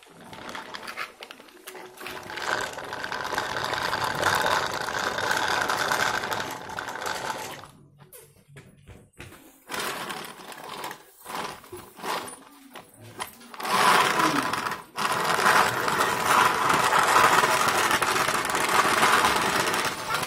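Small electric motor and plastic gears of a battery-powered toy vehicle whirring steadily, in two long runs of several seconds with short stop-start bursts between them.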